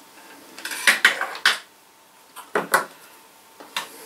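Small hand tools and light-fitting parts clicking and clattering as they are handled on a worktop, in three short bursts, the busiest about a second in.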